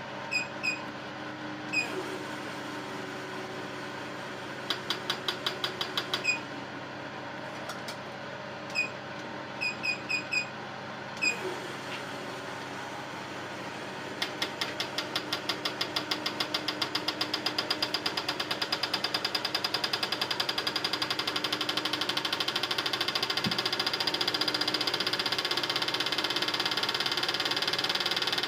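Alfa Romeo 2.0 JTS fuel injectors being pulsed on an injector test bench over the bench's steady hum. Short electronic beeps and a brief run of clicks come in the first part. From about 14 s on the injectors tick fast and evenly, the ticking speeding up and growing louder.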